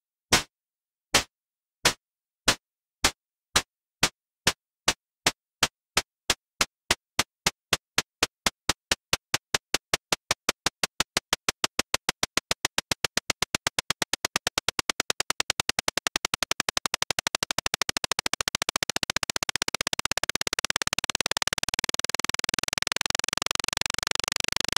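Cartoon time-bomb ticking sound effect: sharp electronic ticks, about one and a half a second at first, speeding up steadily until they run together into a rapid buzz near the end, the sign of a countdown closing in on the explosion.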